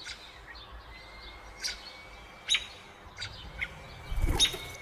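Songbird chirps: about five short, sharp, high calls at irregular spacing, over a faint thin steady high tone. A brief low rumble comes about four seconds in.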